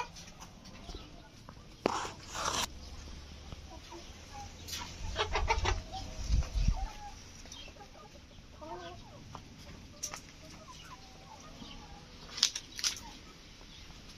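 Chickens clucking now and then, mixed with short rustles and clicks, and a brief low rumble about six seconds in.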